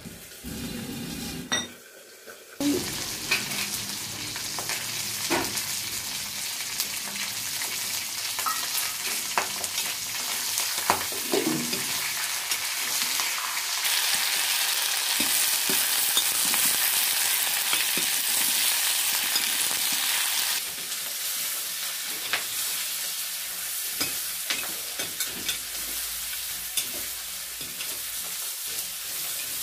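Food sizzling as it is stir-fried in a wok, with a metal spatula scraping and clicking against the pan. The sizzle is louder for several seconds in the middle.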